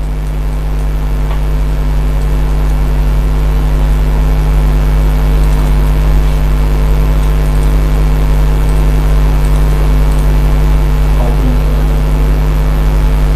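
Steady electrical hum with a buzz above it, unchanging throughout.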